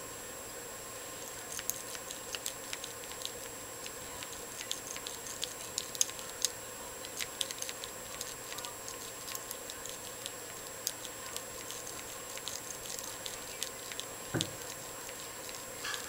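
A modified snowman (double-ball) lock pick raking the pins of a laminated pin-tumbler padlock under light tension from a tension wrench. It makes faint, irregular metal clicks and scrapes over a steady background hiss.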